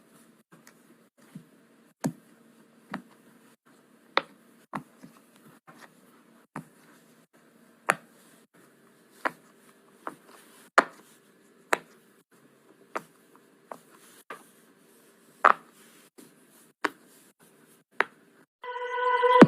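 A fidget toy clicking or snapping with sharp single clicks, roughly one a second and unevenly spaced. Music starts just before the end.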